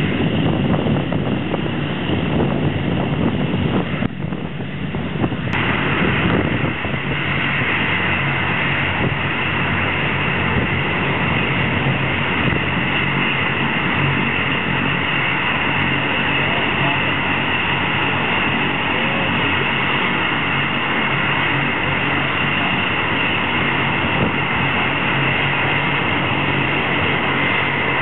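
Jet engines of several BAE Hawk and Alpha Jet trainers running on the ground, a steady high turbine whine over a low rumble. The sound dips briefly and ends in a sharp click about five seconds in, where the recording is cut, then runs on steadily.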